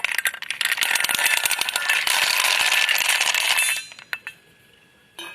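Husked hazelnuts in their shells being poured onto a scale: a dense clatter of hard nuts knocking together and against the container for nearly four seconds, then a few stray clicks as the last nuts settle.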